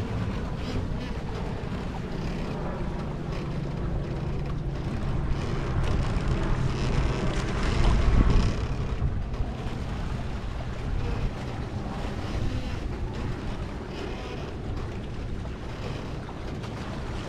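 Water rushing past the hull and outrigger of a paraw sailboat under sail, with wind buffeting the microphone. A louder surge comes about eight seconds in.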